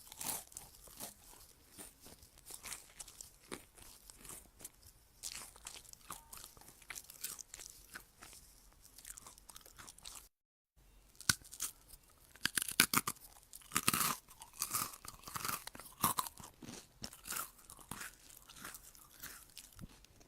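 Crunchy chewing of crisp food: a dense run of irregular crunches and bites. It cuts out briefly about ten seconds in, then resumes louder and sharper.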